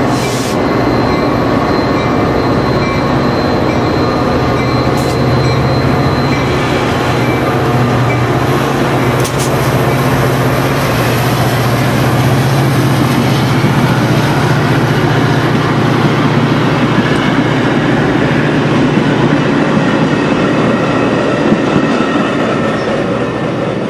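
Metra commuter train going by at close range: a diesel locomotive's engine drones steadily and its bilevel passenger cars' wheels rumble on the rails, with a faint high wheel squeal early on.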